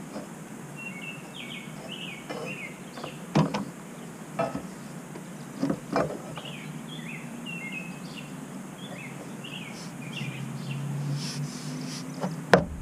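Light-bar mounting bracket being worked onto a roof rail by hand: a few scattered clicks and knocks, the loudest near the end, over steady outdoor background noise with faint high chirping.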